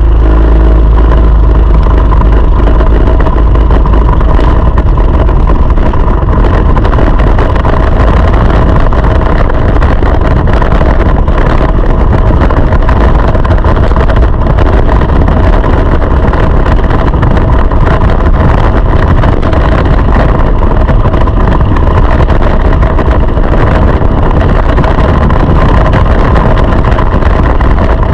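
Go-kart engine running, loud and close as heard from a camera mounted on the kart, a dense steady drone whose pitch changes little.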